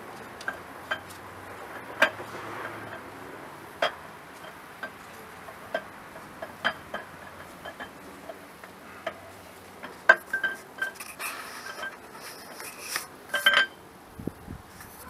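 Irregular sharp metallic clicks and clinks as the camshaft is worked out of a GM 3800 V6 engine block, more frequent in the last few seconds.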